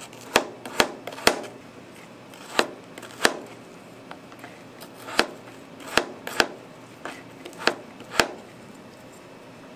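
Kitchen knife chopping frozen mango on a plastic cutting board: about ten sharp knocks of the blade striking the board at an uneven pace, the last one a little past eight seconds in.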